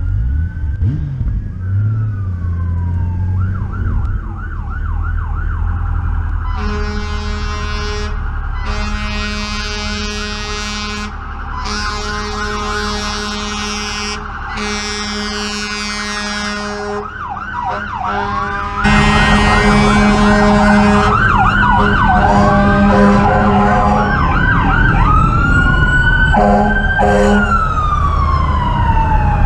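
Fire engine sirens wailing and yelping, several at once, with about five long air-horn blasts in the middle, over a low engine rumble.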